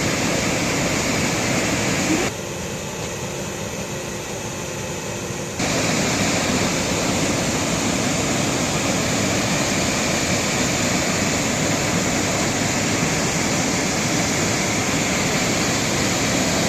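Steady rush of a waterfall's falling water, an even noise with no pitch. About two seconds in it drops quieter and thinner for some three seconds, then comes back at full strength.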